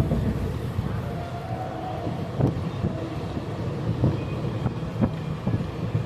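Passenger train running on the rails: a steady low rumble broken by irregular knocks.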